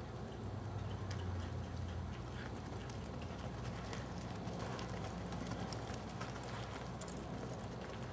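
Hoofbeats of a horse galloping and turning on arena dirt, over a steady low hum.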